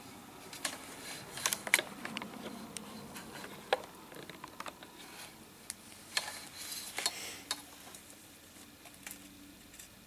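Small irregular clicks and rustles of a wire lead and its metal clip being handled while a ground lead is hooked up.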